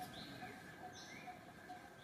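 Faint birdsong: a few short, high rising chirps over a soft note that repeats about twice a second.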